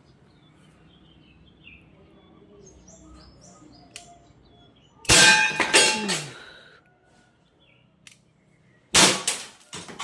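Two shots from a Tess Power WG 321 airsoft gun, about 5 s and 9 s in, each hitting a thick ceramic tile target with a sharp crack and a ringing clang; the first rings and rattles on for over a second.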